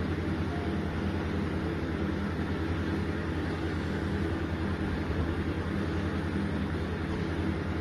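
A steady low hum with a hiss over it, unchanging throughout.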